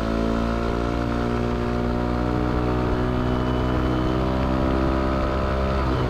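Yamaha Aerox 155 scooter's single-cylinder engine through a K'RACE standard-racing aftermarket exhaust, pulled from low revs up towards high revs while riding. The note rises at first, then holds nearly steady as the CVT takes up speed, and drops sharply near the end as the throttle closes. It is not noisy even at high revs.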